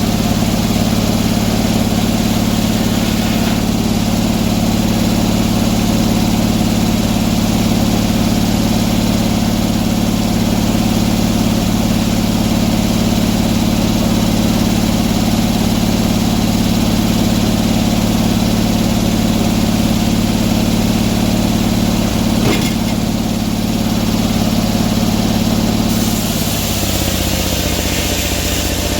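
Gas engine of a sawmill running steadily at speed, as in a cut through a pine log. About 26 seconds in the engine note drops and settles lower as it throttles back, with a single click a few seconds before.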